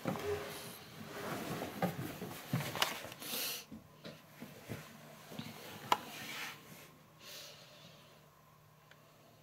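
Footsteps and shuffling on wooden stairs with rustling and handling noise, broken by a few sharp knocks. It dies down about three quarters of the way through.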